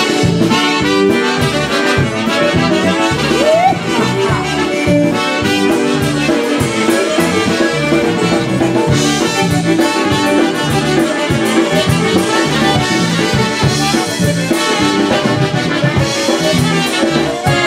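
Live polka band playing an instrumental passage: a concertina carrying the melody over electric bass guitar and drums, with a steady bouncing beat.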